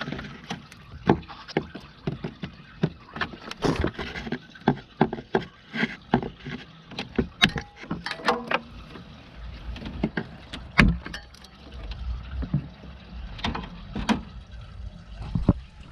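Irregular clicks, taps and knocks of hands and a screwdriver working at plastic wiring clips on a car's radiator fan shroud, with the sharpest knocks about a second in and around eleven seconds in.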